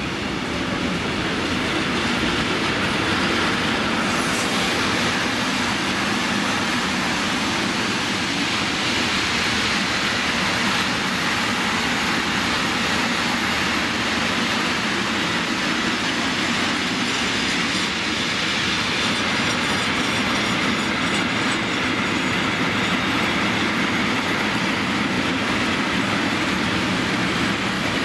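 Container freight train wagons rolling past at speed, a steady rumble of steel wheels on the rails with clickety-clack over the rail joints.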